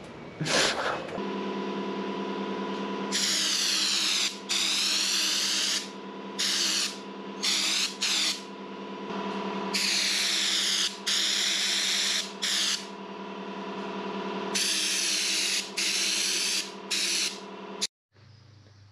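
Air spray gun hissing in about a dozen short bursts, one per trigger pull, as Raptor paint is sprayed on. Under it a motor hums steadily from about a second in. Everything cuts off abruptly just before the end.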